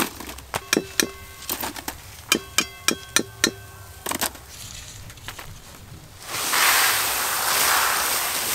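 Metal slotted spoon knocking repeatedly against the metal wok as freshly fried fritters are shaken off into a basket, each knock ringing briefly at the same pitch. From about six seconds in, a loud steady rushing hiss of puffed rice (muri) being poured out onto newspaper.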